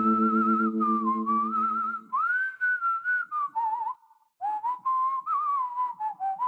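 A whistled tune in the soundtrack music, one wavering line in short phrases with light clicks behind it; a held musical chord under it stops about two seconds in.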